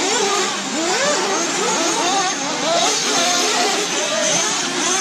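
Several off-road RC race cars running together, their motors revving up and down in many overlapping rising and falling pitches.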